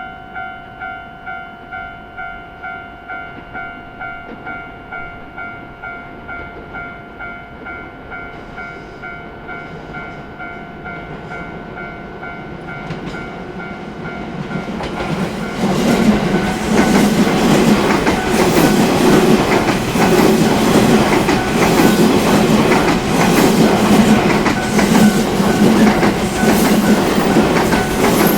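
Japanese level-crossing warning bell ringing in even dings, about two a second. From about 15 seconds in, a train passes through the crossing, its wheels clattering over the rail joints in a regular rhythm and drowning out the bell.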